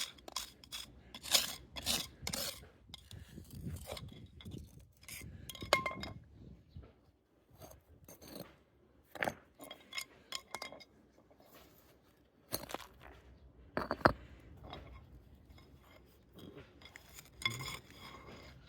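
Concrete paving tiles being prised up and lifted out: irregular clinks, scrapes and knocks of tile against tile and grit.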